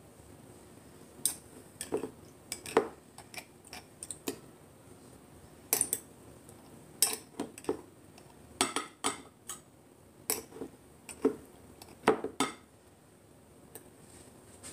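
Metal cutlery clinking and tapping against dishes: about fifteen sharp clinks at irregular intervals, with a quiet stretch near the end.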